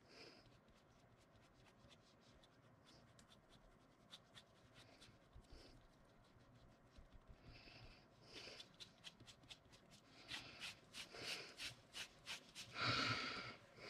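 A small sponge dabbing and rubbing white medium through a stencil onto card: a faint scratchy rustle with soft ticks, growing busier from about eight seconds in and loudest near the end.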